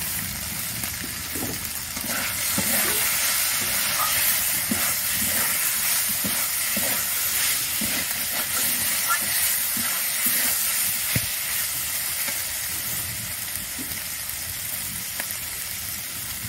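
Diced potatoes in spice paste sizzling in a metal kadai while being stirred, with the metal spatula scraping and clicking against the pan. The steady hiss of frying grows a little louder about two seconds in.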